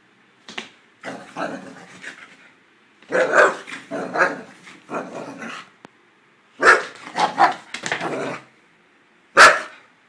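Boxer dog barking in excited, happy play, in a string of short bursts with the loudest single bark near the end.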